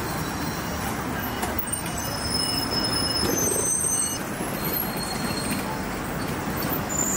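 Street traffic at a busy city intersection: steady road noise from a crowd of scooters and motorbikes moving through, with a bus. A few brief high tones sound about two to four seconds in.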